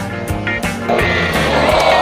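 Background music with a steady beat. About a second in, a dense, steady noise rises under it and grows louder.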